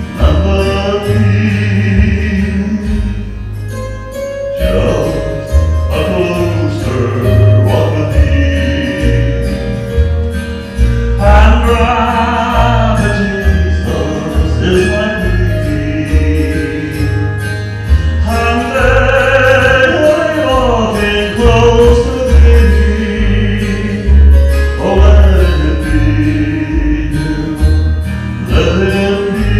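A man singing a gospel song into a handheld microphone, with held and gliding notes, over an instrumental accompaniment with a steady bass beat.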